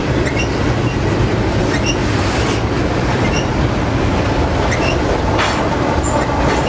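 Double-stack container train rolling past close by: a steady, loud rumble of steel wheels on the rails, with scattered clicks, short high wheel squeaks and a few clanks. Near the end the rear distributed-power diesel locomotive passes.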